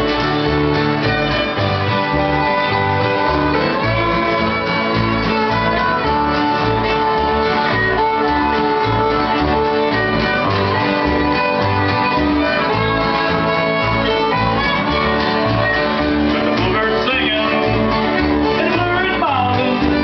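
Live bluegrass band playing a song with a steady beat: fiddle and acoustic guitars over a resonator guitar and an upright bass.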